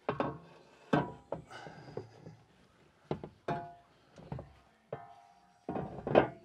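Metal shelf pieces of a cargo rack kit being handled and set in place: a series of knocks and clanks, some leaving a short ringing tone.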